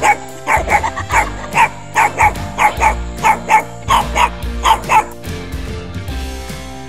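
Puppy yipping: a rapid run of short, high barks, many in quick pairs, that stops about five seconds in.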